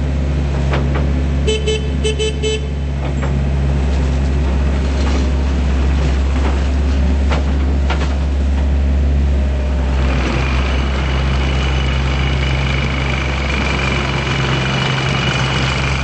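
Takeuchi TL130 tracked skid steer loader's diesel engine running steadily, with a quick string of beeps about a second and a half in. About ten seconds in, a high steady whine and hiss join the engine.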